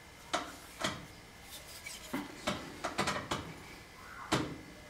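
Handling noise from a Ruger Wrangler .22 single-action revolver turned over in the hands: a string of sharp clicks and knocks, several bunched around the middle, with light rubbing between them.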